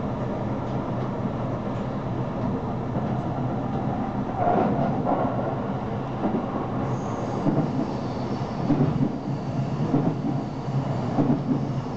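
Electric commuter train running at speed, heard from inside the carriage: a steady rumble of wheels on rail, with louder uneven bumps coming more often in the second half.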